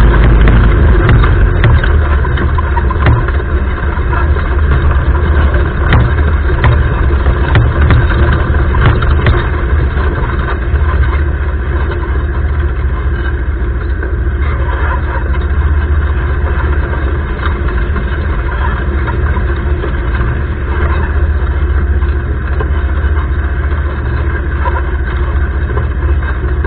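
Arora Herkul 200cc ATV's single-cylinder four-stroke engine running steadily.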